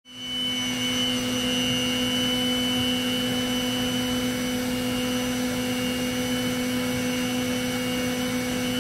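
CNC vertical milling machine engraving a snowmobile clutch weight. The spindle runs with a steady whine of several held tones over a hiss of coolant spraying on the cutter.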